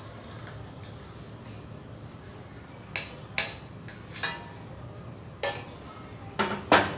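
Metal kitchen utensils clinking as the boiled kadha is strained: the strainer and pan knock against the cup about six times, in sharp irregular clinks over the last four seconds.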